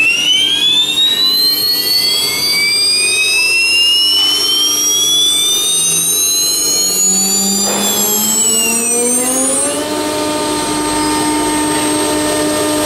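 Whine of a Blue Elephant 2030 ATC CNC router spindle spinning up, rising steadily in pitch for about ten seconds. It then changes suddenly to a steady whine at constant speed.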